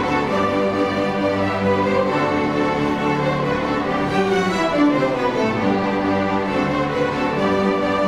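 Student string ensemble of violins and cellos playing, bowed notes held for a second or more at a time.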